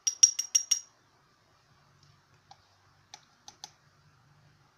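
A quick run of sharp clicks, about six a second, then a few softer ticks around three seconds in: a hard object tapping against a small ceramic bowl.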